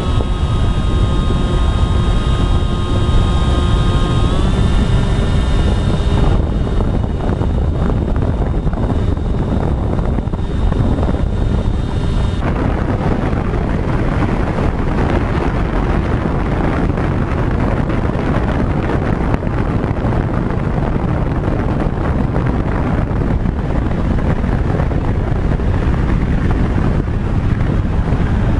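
Electric motors of an FPV radio-controlled model aircraft whining under heavy wind buffeting on the microphone. The whine steps up in pitch about four seconds in and drops out after about six seconds, leaving a dense rush of wind noise.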